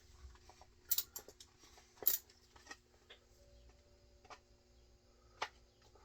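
A few sharp light clicks and taps, about five spread out, from shotgun parts being handled and fitted by hand, over a faint steady hum.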